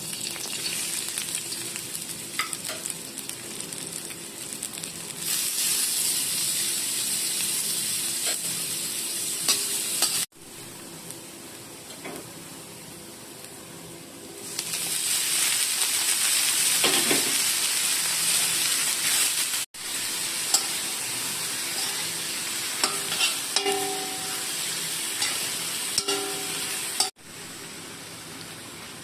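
Shrimp stir-frying in a hot pan: a steady sizzle with a utensil scraping and clicking against the pan. It grows louder for two stretches and breaks off abruptly three times.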